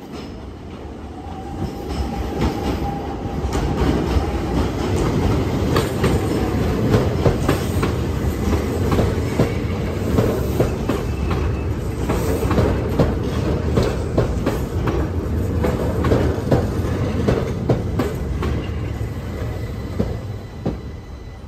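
Keihan 800 series electric train rolling close past over the station trackwork, its wheels clacking over rail joints and points. The sound builds over the first couple of seconds, holds steady, and falls away near the end.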